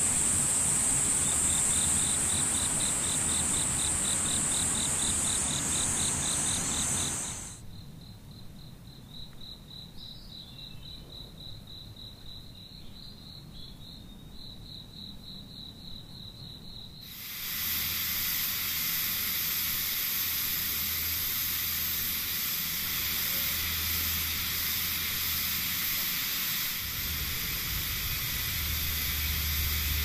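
Insects calling: a high, steady buzz together with a fast, pulsed cricket-like trill. A little over 7 seconds in the buzz stops and the trill carries on alone. About 17 seconds in a loud, steady rushing hiss takes over and masks it.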